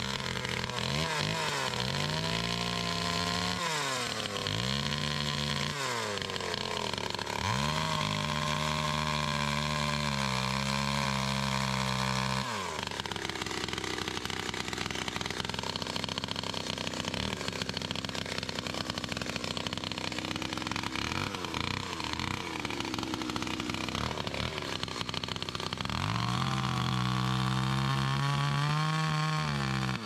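Gas chainsaw cutting brush and small saplings close to the ground. The engine revs up and falls back again and again in the first half, then runs lower and steadier for a stretch, and is revved up again near the end.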